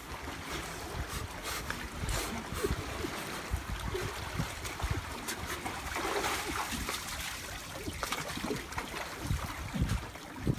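Sea water sloshing and lapping among concrete tetrapods, with irregular wind rumble on the microphone.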